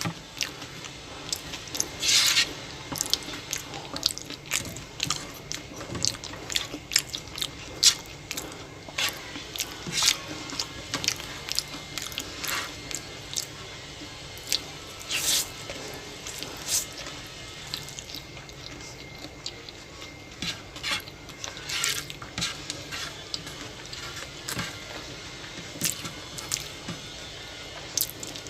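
A person eating close to the microphone: chewing and wet mouth noises, with many short, irregular clicks and smacks.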